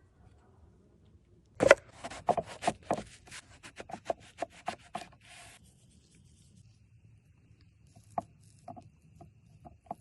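A quick run of sharp knocks, about four a second for some three seconds, then a short scrape, then a few scattered light taps.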